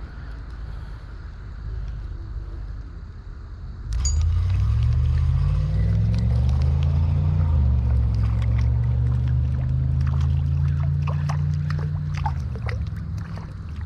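An engine starts up about four seconds in, climbs in pitch for a few seconds, then runs steadily before fading near the end.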